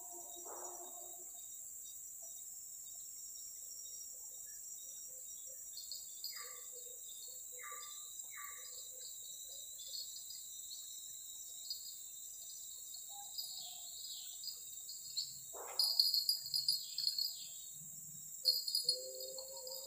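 Chorus of forest insects: a steady high shrill with a pulsing trill beneath it that comes and goes and grows louder near the end. Three short chirps come about a third of the way in.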